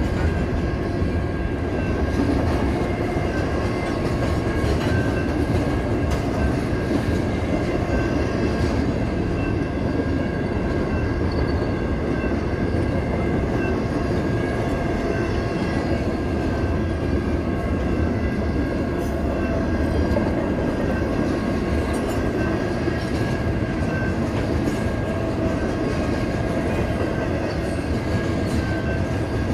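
An intermodal freight train's flatcars, loaded with semi-trailers, rolling past at close range: a steady, continuous rumble and clatter of wheels on rail, with a faint steady high ring above it.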